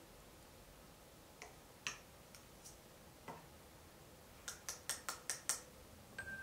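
Plastic plunger cookie cutter on rolled-out cookie dough: a few scattered light clicks and taps, then a quick run of about six sharp clicks near the end as the plunger is pressed down.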